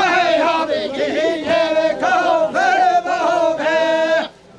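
Kurdish dengbêj-style male singing, unaccompanied, with long held notes ornamented by pitch bends, breaking off briefly near the end.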